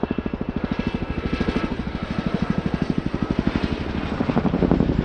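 Boeing Chinook HC.6 tandem-rotor helicopter in flight, its blade slap a rapid, regular pulsing beat (the 'wokka'), growing louder near the end.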